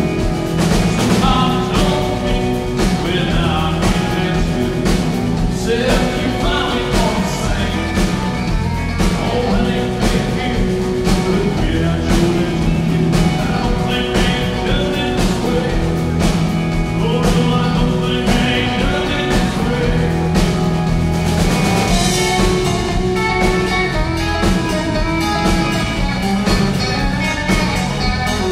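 Live band playing a country-rock song: electric guitar over a Yamaha drum kit keeping a steady beat.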